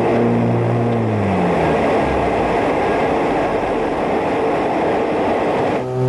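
Light aircraft heard from inside the cockpit in flight: an engine tone drops in pitch and fades out within the first second and a half as power is pulled back, leaving a loud, steady rush of airflow. The sound cuts off abruptly near the end.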